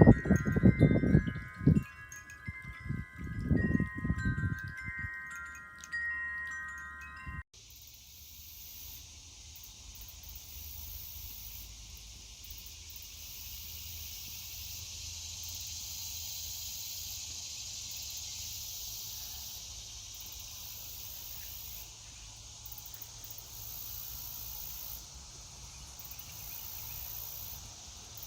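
Wind chimes ringing with loud low bumps for the first few seconds. After an abrupt cut, a steady soft hiss of low water spray from a small floating solar fountain pump, with insects chirping in high pulses over it.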